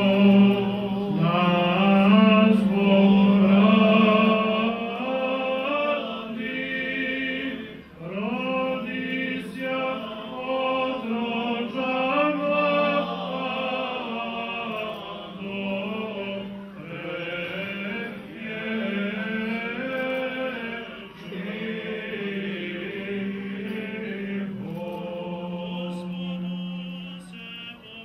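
Male Orthodox clergy chanting a liturgical hymn together in sustained sung lines, loudest in the first few seconds and then softer.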